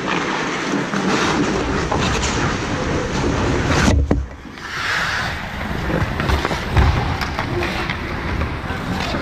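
Ice hockey skate blades scraping and carving the ice close by, a steady hissing noise, with one sharp knock a little before four seconds in.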